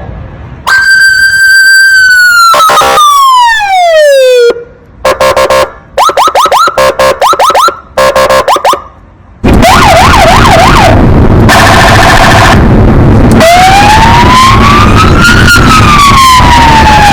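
Police car siren run through several tones: a long tone that winds down, a string of short rising whoops, a fast warble, a steady buzzing horn tone, then a slow wail that rises and falls.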